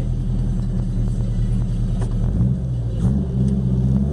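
Chevrolet Chevette 1.6 S four-cylinder engine with a 4-into-1 header and open pipe, running at a steady low speed, then revving up in steps from about two seconds in.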